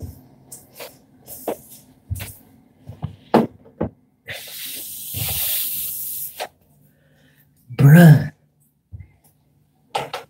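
A cotton towel rubbed over wet face and hair, a rough hiss lasting about two seconds, amid scattered knocks and clicks of handling. About eight seconds in comes a short, loud burst of voice, the loudest sound here.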